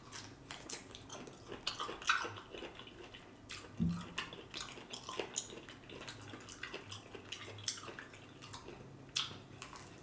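Close-miked chewing: irregular wet smacks and mouth clicks from a man chewing a mouthful of food, with a dull bump about four seconds in.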